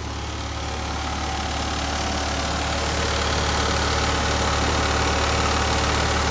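Classic Fiat 500's air-cooled two-cylinder engine idling steadily. It grows louder over the first few seconds as the microphone nears the open rear engine bay.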